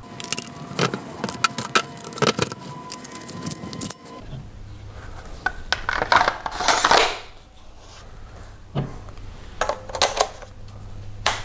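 Beretta A400 Xtreme Plus shotgun parts being assembled by hand: a run of metal clicks, knocks and rattles, with a brief ringing, a longer sliding scrape about six seconds in, and a few more clicks near the end.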